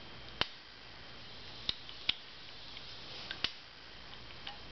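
Snap ring pliers working the snap ring out of a motorcycle clutch's release plate: a few sharp metallic clicks at irregular intervals.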